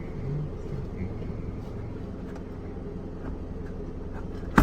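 A steady low engine hum, with a few faint clicks of tools being handled and one sharp, loud clack near the end.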